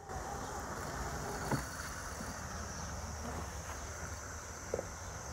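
RoboUP robotic lawnmower running as it mows the grass: a steady, even hum with a couple of short knocks.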